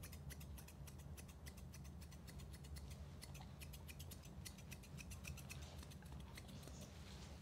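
Thinning shears snipping through a dog's ear hair: a quick run of light metallic snips, several a second, that grows sparser after about five seconds.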